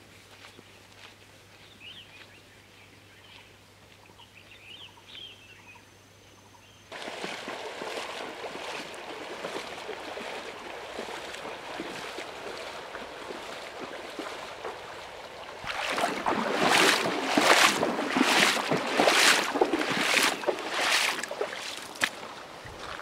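Faint bird chirps over quiet, then from about seven seconds in a steady rush and splash of a shallow stream as a person wades across it. In the last seconds, regular splashing footsteps on wet pebbles in shallow water, a little under two steps a second and the loudest part.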